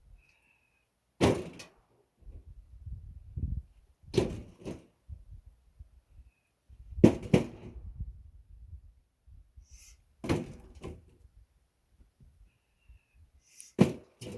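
Heavy wooden thuds of pine firewood logs being set down one after another, a single or double knock about every three seconds, with scraping and shifting between them.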